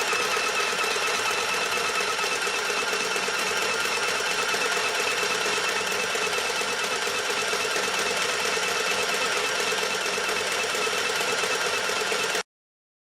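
UKICRA CBT-0313 mini sewing machine running steadily, then cutting off abruptly near the end.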